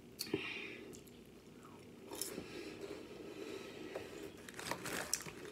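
Chewing food, with soft wet mouth sounds and scattered light clicks and crinkles from fingers handling a plastic food container and a cracker bag.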